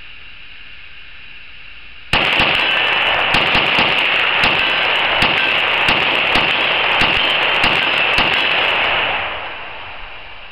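A 5.56 rifle fitted with a muzzle brake fired in a rapid string of many shots, starting about two seconds in and going on for about seven seconds before the din dies away near the end.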